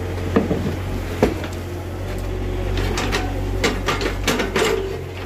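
Small excavator's engine running with a steady low hum while its bucket digs through soil and broken concrete. Several sharp clacks and knocks of rubble come through, most of them in the second half.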